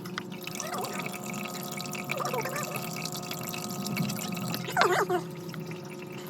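Water dripping and trickling in a turtle's tank over a steady hum, with a short voice-like sound about five seconds in.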